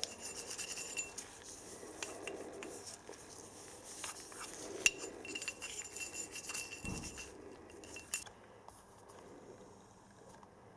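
Light metal clinks and scrapes as the steel shaft and a slack-fitting bush of a lathe live centre are handled, the loose bush sliding and knocking on the shaft. A sharper clink comes about five seconds in, with a faint ring of metal after some of the knocks.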